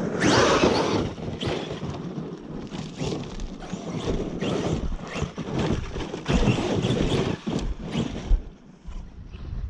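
Arrma Kraton 8S RC truck driving over hard-packed dirt and loose rock: a steady scrabble of tyres and stones with many knocks, and wind on the microphone. A sharp loud thump comes about eight seconds in.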